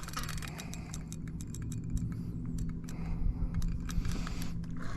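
Close handling noise: a rapid, irregular run of small clicks and rattles, with a steady low hum beneath.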